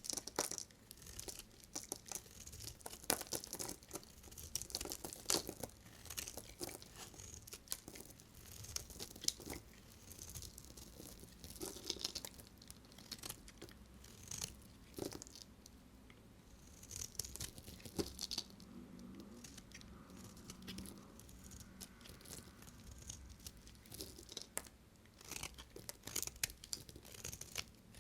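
A knife cutting through dry bar soap: crisp crackling and crunching in an irregular run, with sharper snaps scattered through it.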